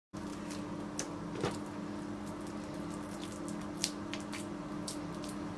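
Faint sticky squishes and a few light clicks as oiled hands tear off pieces of boyoz dough and press them into a baking tray, over a steady low hum.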